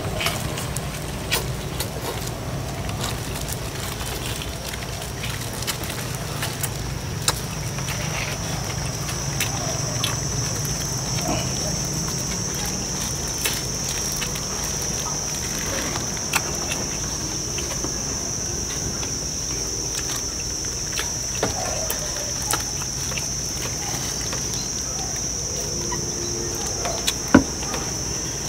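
Eating at a table: scattered short clicks and knocks of chopsticks, bowls and chicken bones over a steady low hum, with one sharp knock near the end. About eight seconds in a high, steady insect buzz sets in and continues.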